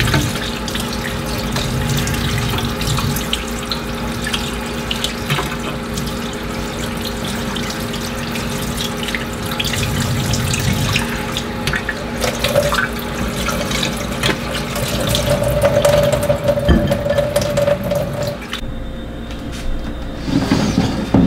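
Kitchen tap running into a stainless-steel sink while raw catfish fillets are rinsed by hand in a bowl, with small splashes and clinks from the handling. The running water cuts off near the end.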